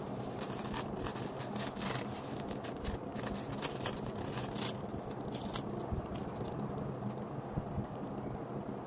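Plastic carry bag and clear plastic packets crinkling and rustling as they are handled and opened, in quick irregular crackles.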